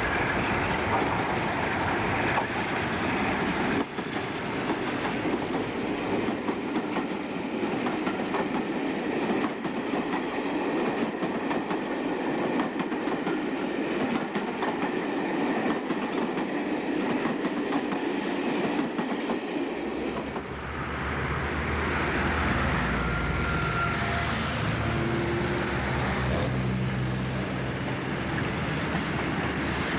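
Locomotive-hauled passenger train passing close by: a Class 47 diesel leads, then the coaches go past with the clickety-clack of wheels over rail joints. About twenty seconds in the sound cuts to the steady low engine note of a Class 50 diesel locomotive, with its English Electric 16-cylinder engine, running past.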